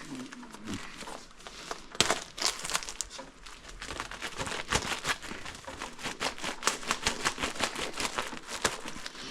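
Plastic packaging crinkling as a water-filter cartridge is unwrapped and handled: scattered crackles at first, then a dense run of crinkling from about two seconds in.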